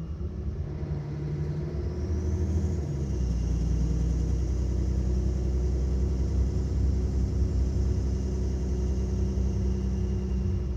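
Mercedes-Benz Citaro O530 city bus engine running, heard from inside the bus. It grows louder over the first three seconds, with a shift in pitch about three seconds in, then runs steadily with a faint high whine above the low drone.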